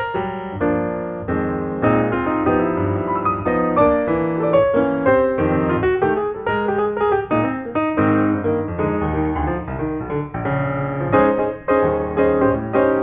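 Background piano music: a continuous run of piano notes and chords with no speech.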